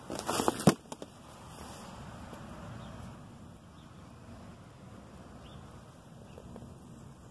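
Plastic seat of a small dirt bike pulled off its frame: a brief scrape ending in a sharp click as it comes free, then a smaller click, followed by faint outdoor background.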